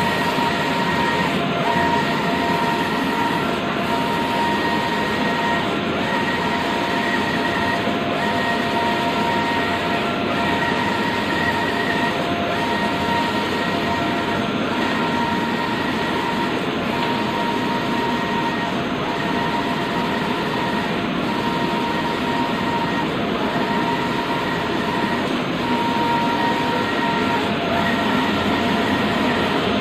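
Stratojet Hawk wide-format inkjet printer running while it prints: a steady mechanical whir of the print-head carriage and feed, with a steady tone that breaks off briefly about every two seconds.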